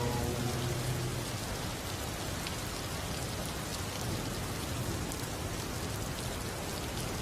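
Steady rain falling, an even hiss with scattered drop ticks; the last held sung note fades out about a second in.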